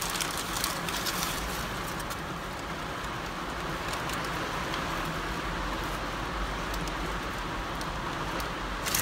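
Steady rain falling on the car's roof and windscreen, heard from inside the cabin, over a constant low hum.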